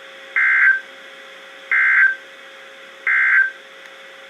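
NOAA Weather Radio SAME digital end-of-message code: three short, buzzy data bursts about 1.3 seconds apart over steady radio hiss. They signal the end of the emergency alert broadcast.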